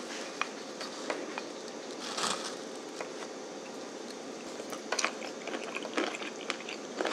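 Faint, scattered clicks and light scrapes of a wooden spoon in a ceramic bowl of yogurt and granola, over a steady room hiss.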